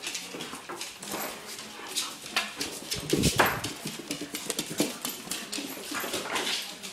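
A chocolate Labrador and a Treeing Walker Coonhound playing tug-of-war with a toy: dog noises and scuffling, with many quick irregular clicks and a loud bump about three seconds in.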